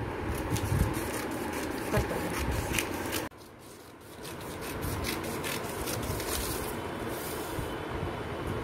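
Scissors snipping through folded newspaper: a run of quick, short cuts with paper rustling, and a brief break a little after three seconds in.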